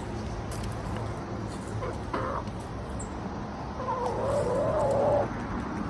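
A chicken calls: a short squawk about two seconds in, then a longer, wavering call near the end, over a steady low background hum.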